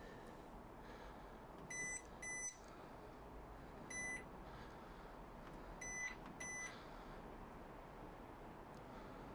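Hisense washing machine's control panel beeping as its buttons are pressed to set the wash temperature: five short high beeps, a quick pair about two seconds in, a single one at four seconds, and another pair near six seconds.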